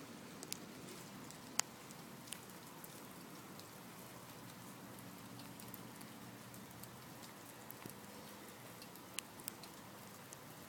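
Heavy rain pouring steadily, with scattered sharp ticks of drops striking close by; the loudest tick comes about a second and a half in.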